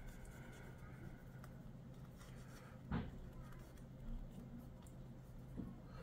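Faint rubbing and scraping as old thermal paste is cleaned off laptop components, with one sharp tap about three seconds in, over a low steady hum.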